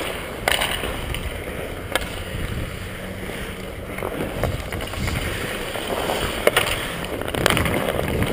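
Ice hockey skate blades gliding and scraping on rink ice, a steady hiss, with a few sharp clacks scattered through.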